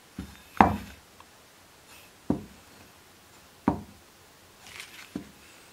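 Steel knife blade being stropped on clean leather over a wooden bench, giving a dull knock each time the blade is laid down and turned for the next pass. There are five knocks, the loudest about half a second in, then about one every second and a half. This is the final buffing pass that brings the blade to a mirror finish.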